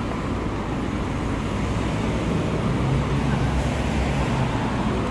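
Steady road traffic passing on a busy multi-lane city street: engines and tyres making a continuous rumble, with a low engine hum growing a little louder around the middle.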